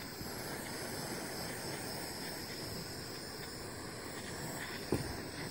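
Small handheld torch running with a steady hiss while heating heat-shrink tubing over wire connections; a single short click about five seconds in.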